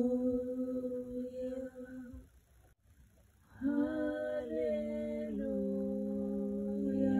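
Two female voices singing long held notes without words. One voice holds a note for about two seconds and then stops briefly. From about three and a half seconds in, both voices hold a long note together in harmony.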